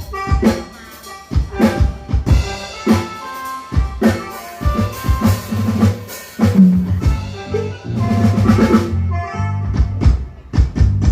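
Band sound check: a drum kit plays sharp hits, joined by a bass and other pitched instruments that hold fuller, steadier notes from about seven seconds in.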